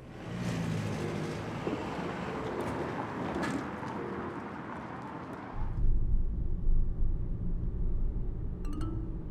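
Car driving off: a broad rush of engine and tyre noise, then from about five and a half seconds a steady low road rumble.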